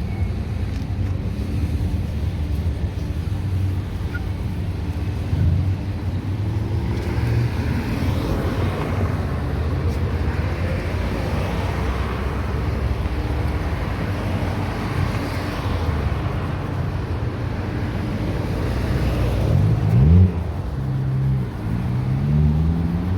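A car engine running with steady road rumble while driving. Near the end the engine's pitch climbs in a few rising sweeps as it accelerates.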